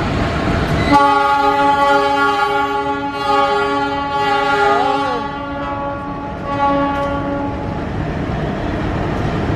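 Train horn sounding one long, steady blast at a single pitch, starting about a second in and lasting about six and a half seconds.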